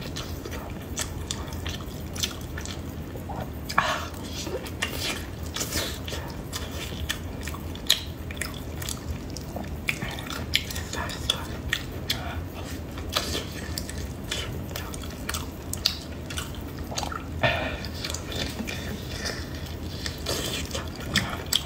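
Close-miked wet chewing and mouth smacking of a person eating soft braised meat, with frequent sharp lip and tongue clicks over a steady low hum.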